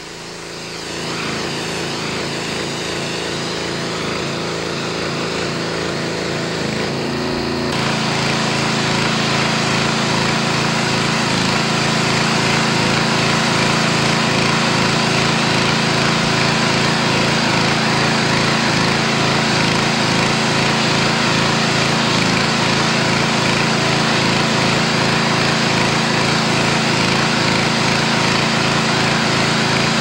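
Petrol-engine pressure washer running steadily under load, its engine drone mixed with the hiss of the water jet; it steps up louder about eight seconds in.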